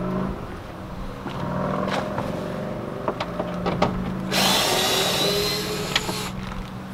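A cordless driver with a 7 mm socket running in short spells, backing out door-panel screws, with clicks from the socket and screws in between. A louder, hissier run starts about four seconds in and stops about two seconds later.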